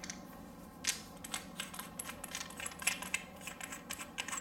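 Faint, irregular small metallic clicks and taps as lightsaber hilt parts (pommel and emitter pieces) are handled and fitted together.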